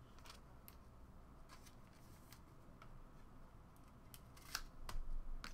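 Trading cards being handled off camera: faint, scattered short clicks and rustles, growing busier near the end.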